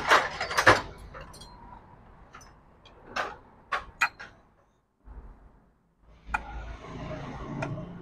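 Sharp metal clinks and taps of a bolt and thick washer being fitted to the gearshift finger in an aluminium motorcycle crankcase, then a socket T-wrench set on the bolt and turned with a rasping scrape. A cluster of clicks comes right at the start and a few single clicks about three and four seconds in.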